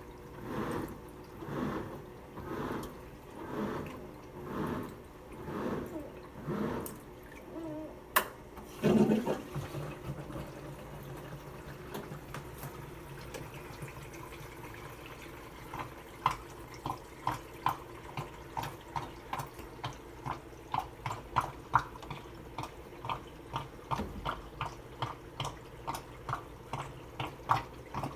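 Washing machine sloshing water in regular back-and-forth strokes about once a second, stopping about eight seconds in with a click and a thump. Later comes a run of quick light ticks, two to three a second.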